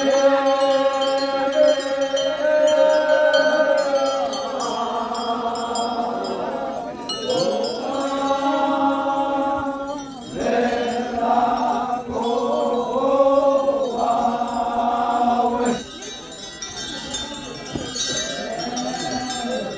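Group of Naga warrior dancers chanting in unison in long, held notes. The phrases break off briefly about seven and ten seconds in, and the chant is quieter over the last few seconds.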